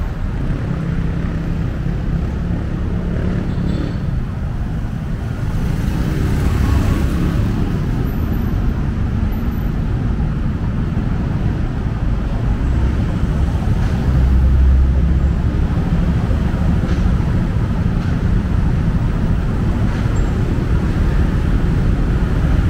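City street traffic: a steady low rumble of cars and motorbikes going past, with a louder low rumble a little past the middle.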